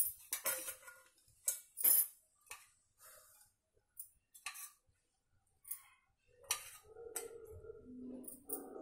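A spoon clinking against an oil container and the rim of a hot kadai as several teaspoons of cooking oil are added, a run of short separate clinks. From about six and a half seconds in, a steadier scraping as the spoon spreads the oil around the pan.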